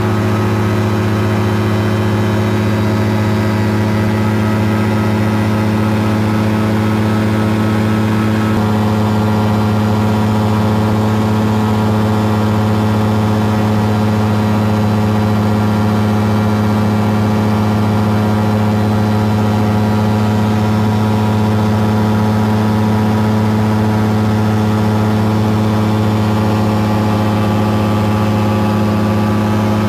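Caprice 21 ultralight's engine and propeller droning steadily in cruise, heard from the cockpit. The tone shifts slightly about eight and a half seconds in.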